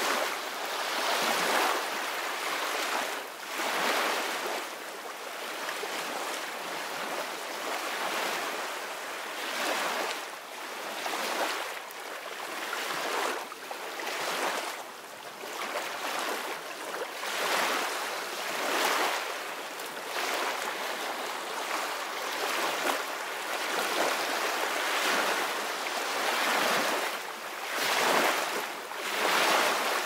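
Small surf waves breaking and washing up onto a sandy beach: a steady rush of foam that swells and eases every few seconds.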